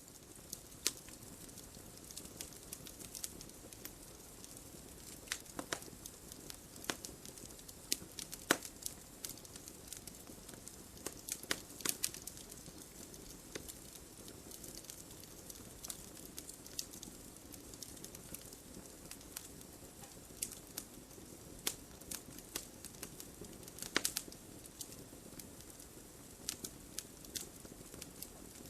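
Wood fire crackling: a steady low rush of burning with irregular sharp pops and snaps, a few louder cracks standing out.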